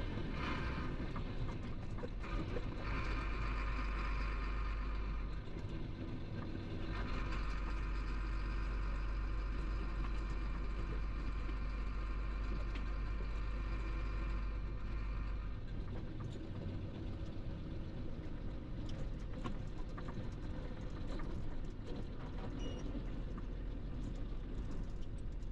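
Chenglong 375 heavy truck heard from inside the cab while driving: a steady diesel engine drone with road noise. A high-pitched whine rides over it from about two seconds in, dips briefly a few seconds later, and stops about halfway through.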